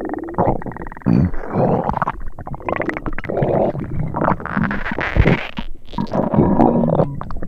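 Stomach rumbling and gurgling sound effect: a dense, irregular run of gurgles with short pitched squeals mixed in.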